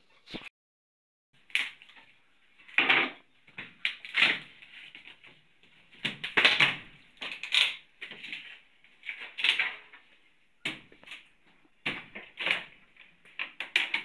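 Sharp knocks and clatters at irregular intervals, roughly one a second: the sound of hammering and prying at wood during house repair work.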